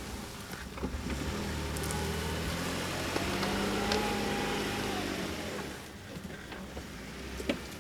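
Jeep Wrangler JKU's engine running and revving: its pitch climbs from about two seconds in, peaks near four seconds and drops back by about six seconds. A few sharp knocks, the loudest one near the end.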